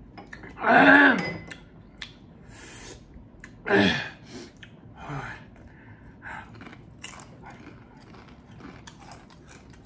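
A man's wordless vocal exclamations after drinking sour aguachile juice of lime and jalapeño: two loud ones with falling pitch, about a second in and near four seconds, and a weaker one just after five seconds, with faint small clicks and mouth noises between.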